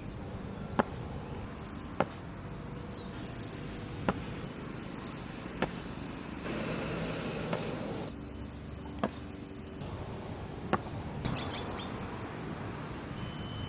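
Sharp single knocks of a bowler's front foot stamping down on the synthetic practice pitch, about seven of them one and a half to two seconds apart, over steady outdoor background noise.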